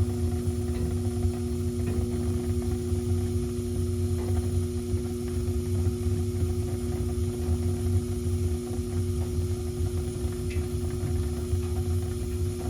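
Gas furnace running with its burners lit, a low rumble, under a steady electric hum that cuts off near the end. The hum is the blower motor powered but not turning, the sign of a failed run capacitor.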